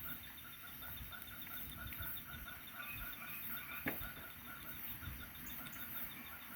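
A bonfire of brush and straw burning with a low rumble and one sharp crack about four seconds in, over a steady, evenly pulsing chorus of night insects.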